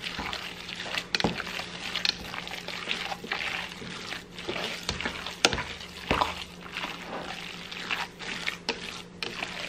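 Hands kneading wet minced beef and pork in a stainless steel pot: irregular squelching and squishing of the mince as water is worked into it, with a few sharp clicks.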